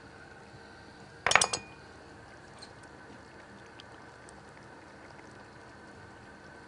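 A kitchen knife set down among other utensils, a brief metallic clatter of a few quick clinks about a second in. After it come a few faint small ticks while cauliflower florets are broken by hand into a pot of broth.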